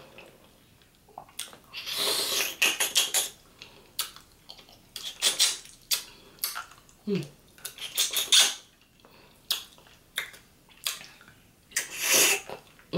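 Eating sounds: mouth smacks and chewing on pieces of curry turkey wing picked up with the fingers, coming in bursts every second or two, with a short hum about seven seconds in.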